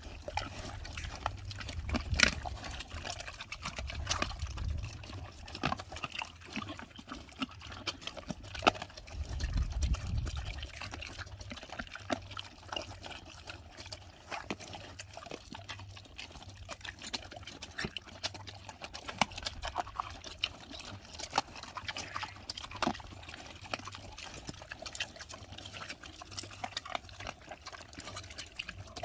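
Pigs chewing fruit and vegetable scraps: a steady run of irregular smacking, crunching chews, some sharply louder than others.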